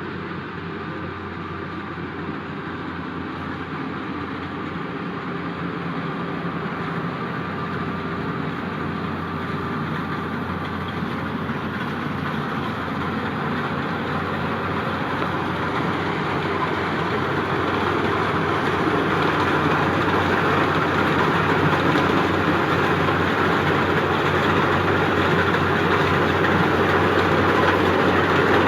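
Yanmar YH850 combine harvester running, a steady mechanical din of engine and machinery that grows gradually louder throughout.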